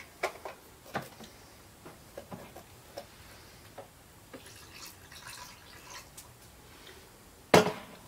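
Goat milk dripping and pouring from a jar into a blender jar, with faint small clicks of pumpkin pulp being scraped. There is one sharp knock near the end.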